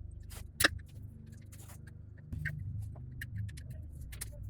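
Scattered clicks and knocks of metal parts and tools being handled during an engine strip-down, with one sharp click a little over half a second in, over a steady low hum.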